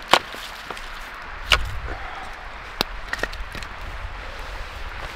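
Wood campfire crackling, with a few sharp pops and cracks from the burning sticks. The loudest comes just after the start, a second about a second and a half in, and a third near the three-second mark.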